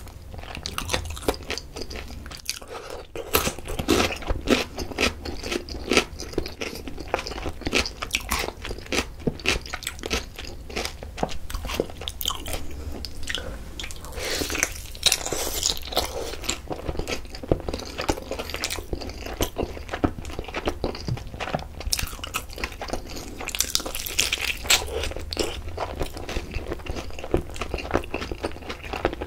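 Close-miked biting and chewing of sauced fried chicken drumsticks: the crisp coating crunches and crackles in a constant stream of small clicks. Louder bursts of crunching come about halfway through and again a few seconds before the end as fresh bites are taken.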